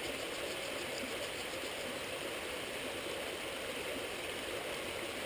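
Steady rushing of a nearby stream, an even, unbroken wash of water noise.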